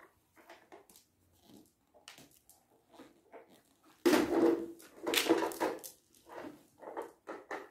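Plastic toys being handled and moved about: scattered light knocks and clatters, with a louder run of handling noise about four seconds in.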